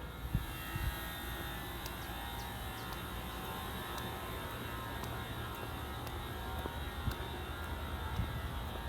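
Steady mechanical hum and hiss, with a few low thumps.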